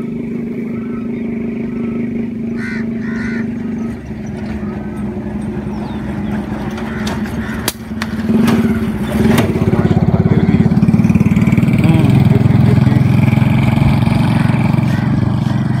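An engine running steadily, growing louder with an even pulsing beat about eight seconds in. A few short bird chirps sound in the first few seconds, and two sharp clicks come near the middle.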